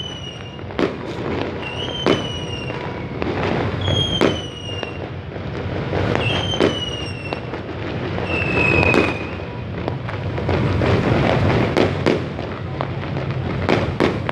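Fireworks going off: sharp bangs every second or two, and several high whistles, each about a second long and dipping slightly in pitch, over a steady background din.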